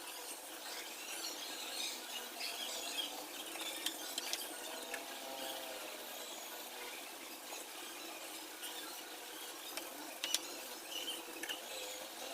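Light scraping and rubbing of handling work, with a few small clicks and taps, the sharpest about ten seconds in.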